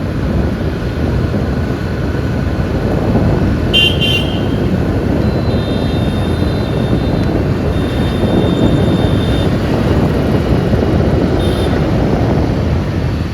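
Wind rush and road traffic noise on a ride through traffic. A vehicle horn toots briefly about four seconds in, horn tones follow from a little later until past the middle, and another short toot comes near the end.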